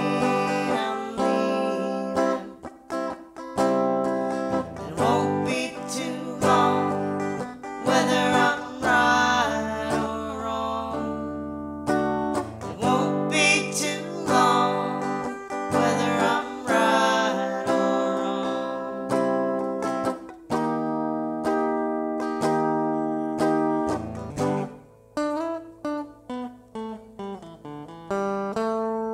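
Music: a song carried by acoustic guitar, giving way near the end to a run of separately plucked notes.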